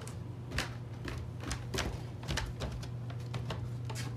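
Footsteps coming down wooden stairs: a run of irregular knocks and clicks, over a steady low hum.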